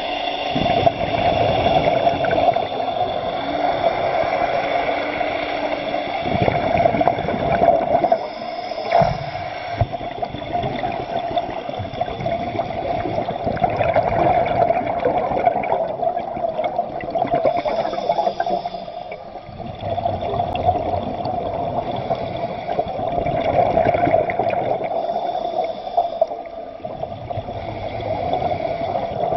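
Steady rushing and gurgling of water, dipping briefly a few times.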